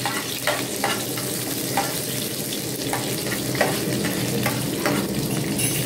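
Onions and garlic sizzling in hot oil in a pan, with a spatula scraping and stirring them in short strokes about once or twice a second. Under the sizzle runs a low steady drone from an airplane passing nearby.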